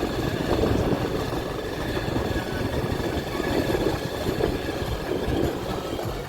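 Vehicle on the move: a steady rumble of engine and road noise.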